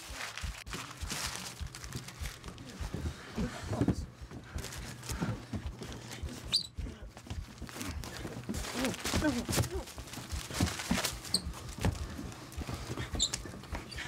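Indistinct, low voices mixed with scattered knocks and shuffling movement.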